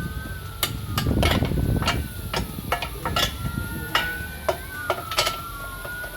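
Irregular metallic clicks and clinks of hand tools on the tow hitch's mounting bolts under the car. A distant siren wails faintly behind them, its pitch slowly rising and falling.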